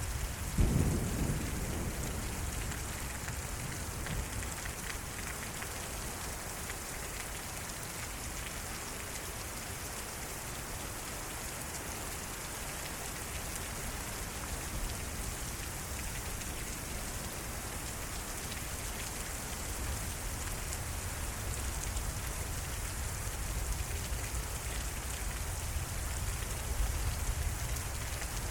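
Heavy rain pouring steadily in a severe nighttime thunderstorm. A sudden clap of thunder comes about half a second in and rumbles away over a second or two, and a low rumble builds again near the end.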